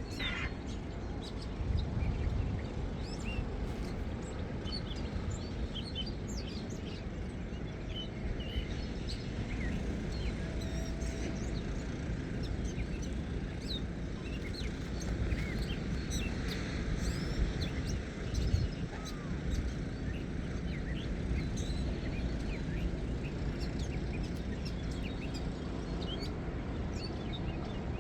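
Outdoor ambience: a steady low rumble, likely wind or distant surf, with small birds chirping now and then.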